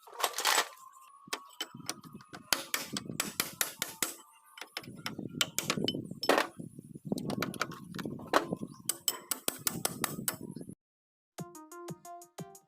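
Metal parts and tools clinking and knocking as they are handled, with many sharp irregular clinks among rustling. The sounds cut off about eleven seconds in, and after a moment's silence music with a regular electronic pattern of notes begins.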